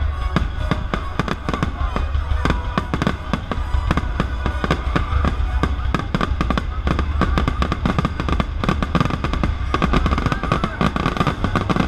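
Aerial firework shells bursting in rapid succession, a dense run of bangs and crackles, over live orchestral music.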